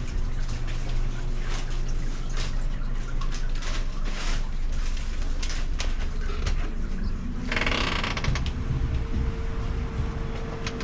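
Room ambience with a low steady hum and scattered short clicks and knocks, like footsteps and light clatter. About seven and a half seconds in comes a one-second rush of noise.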